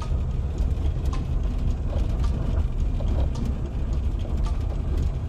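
Low, steady rumble of a vehicle driving slowly over a rough dirt road, with scattered small rattles and knocks.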